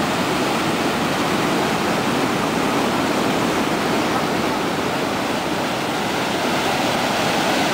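Steady rushing of a wide stretch of whitewater rapids below a dam, floodwater churning over rocks in one continuous, even noise.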